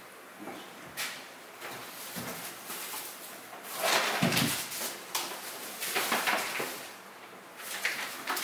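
Groceries being put away: a wooden kitchen cabinet door clicking open, then plastic grocery bags rustling and items knocking on the counter, loudest about four seconds in.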